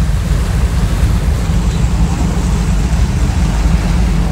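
Steady low rumble of a car ferry underway on its Daihatsu 6PSHT main diesel engine, with wind buffeting the microphone.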